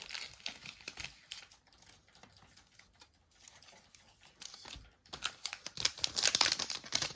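Kayou Naruto trading-card booster pack wrapper crinkling as it is handled and torn open: sparse crackles at first, turning into dense, louder crinkling about five seconds in.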